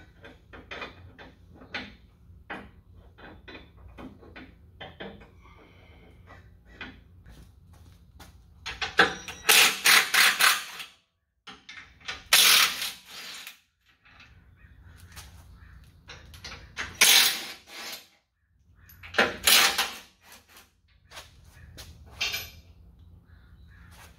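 Cordless impact wrench hammering in four bursts of a second or two each, about nine, twelve, seventeen and nineteen seconds in, loosening the 18 mm sway bar mounting bolts. Before the bursts, scattered small clicks and knocks of tools and hardware being handled.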